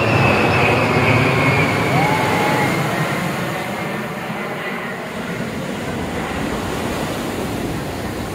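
Jet engines of a four-ship military formation flying past overhead: a loud rush with a high whine that slides down in pitch over the first few seconds, then slowly fades as the jets move away.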